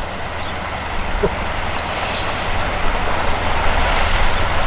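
Wind buffeting the microphone outdoors: a steady noisy rush with choppy low rumbling, swelling slightly from about a second in.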